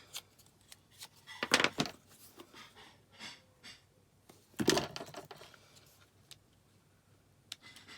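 Paper leaf cut-outs being curled and handled: light clicks and papery rustles, with two louder rustling scrapes about a second and a half in and just under five seconds in.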